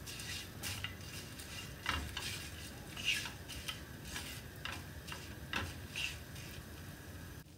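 Silicone spatula stirring and scraping whole spices around a nonstick frying pan as they roast in hot oil, with irregular scrapes and light taps against the pan. The stirring stops just before the end.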